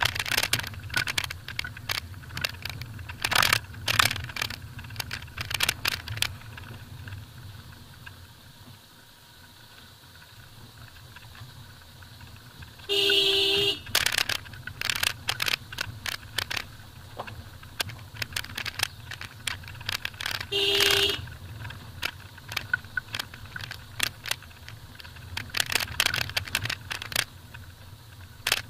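Maruti Suzuki Vitara Brezza driving slowly over a rough gravel track: a low engine hum under frequent clicks and rattles from stones and the shaking car. The horn sounds twice, a honk of about a second about halfway through and a shorter one some seconds later.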